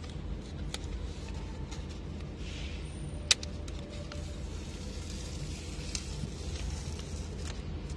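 A paper sticker template being torn apart into two pieces and handled, with rustling and crinkling. There is a sharp click a little over three seconds in, over a steady low hum.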